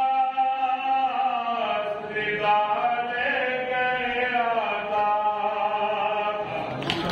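Noha, a Shia lament, chanted by a male voice in long, drawn-out held notes that slowly rise and fall. Near the end there is a sharp strike.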